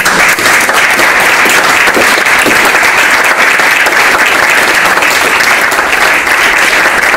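Audience applauding, loud and steady: a dense mass of many hands clapping.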